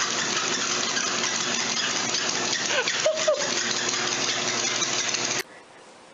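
Treadmill motor and belt running steadily as a dog walks on it, a constant whirring hiss with a faint hum. A couple of brief squeaky glides come about three seconds in, and the noise cuts off abruptly near the end.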